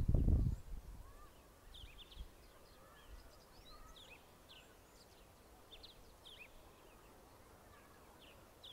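Small birds chirping, many short quick high notes scattered irregularly over quiet outdoor background. A brief low rumble right at the start.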